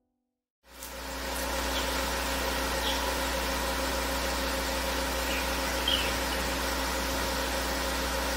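Flatbed tow truck's engine idling: a steady low hum with an even hiss, starting about a second in. A few faint high chirps sound over it.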